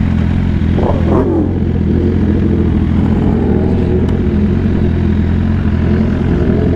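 Sport-bike engine idling steadily with an even low hum, and a brief muffled voice about a second in.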